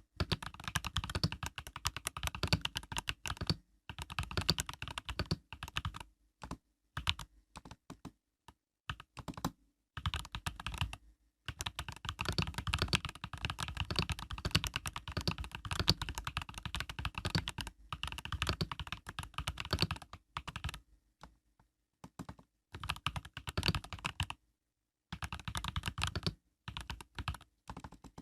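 Typing on an Epomaker EK68 mechanical keyboard with Epomaker Budgerigar tactile switches (POM stems): fast runs of keystroke clacks in bursts of a few seconds, broken by short pauses.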